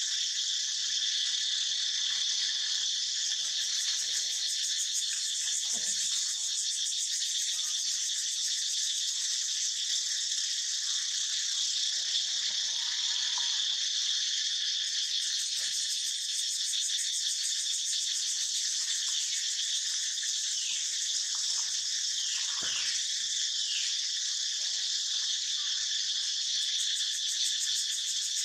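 A loud, steady chorus of insects droning without a break, with a few faint short falling calls about three quarters of the way through.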